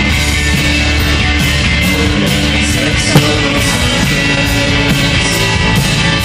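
Live rock band playing an instrumental passage: electric guitars, bass and drums keeping a steady beat. A single sharp click about halfway through.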